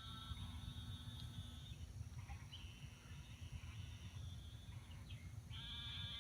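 Faint, drawn-out animal calls, each a second or two long and steady in pitch, coming several times in a row over a low rumble.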